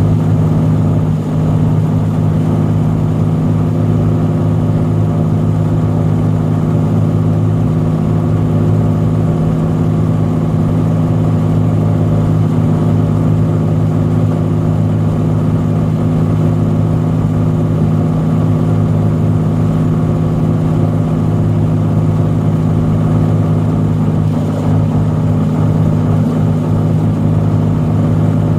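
Cessna 182's piston engine and propeller running steadily, a constant drone heard from inside the cockpit.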